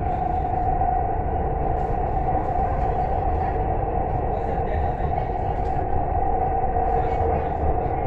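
Dubai Metro train running between stations, heard inside the carriage: a steady low rumble with a constant whine over it.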